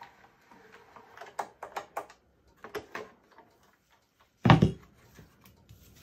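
Manual embossing machine being cranked, the plastic plate sandwich with the embossing folder clicking and knocking as it feeds through the rollers. About four and a half seconds in comes a heavy knock as the plate stack is pulled out and set down on the table, with a lighter knock near the end as the plates are handled.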